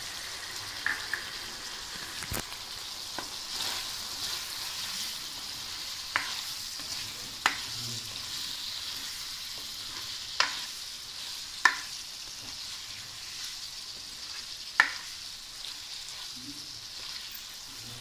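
Chicken and vegetables frying in oil in a kadai with a steady sizzle, stirred with a spatula that clacks sharply against the pan about six times.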